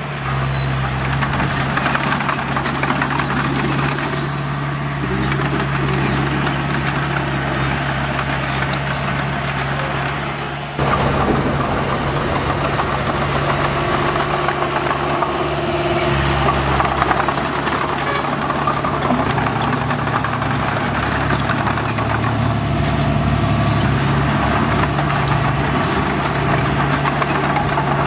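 Heavy diesel engine of earthmoving machinery, such as a bulldozer, running steadily under work with a rattly, clattering texture. The level jumps up abruptly about eleven seconds in and stays there.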